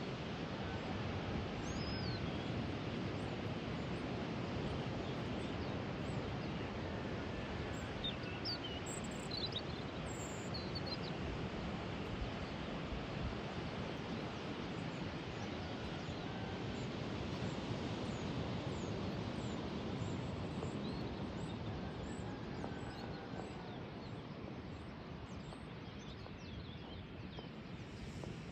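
Steady rushing outdoor noise with small birds chirping faintly now and then, most around a third of the way in.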